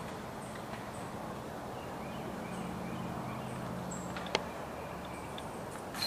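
Outdoor woodland ambience: a steady low hum under faint, short, high chirps, with one sharp knock about four seconds in.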